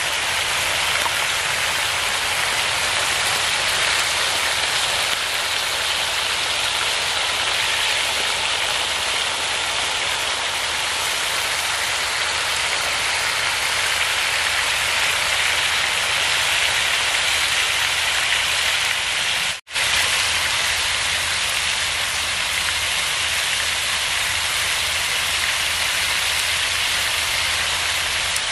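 Minced beef tikka patties frying in oil on a hot flat iron griddle (taba): a steady, dense sizzle that drops out for an instant about two-thirds of the way through.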